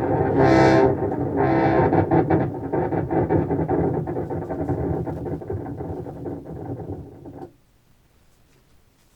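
Contrabass clarinet run through an effects pedalboard with a Walrus Fable granular delay, played back through studio speakers: a dense wash of stuttering, glitchy delay repeats that fades over several seconds and cuts off sharply about seven and a half seconds in.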